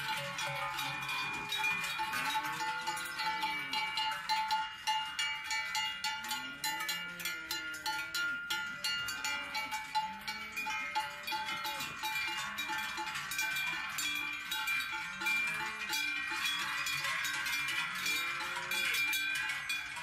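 Many large cowbells on grazing cows clanking and ringing together in a dense, continuous jangle.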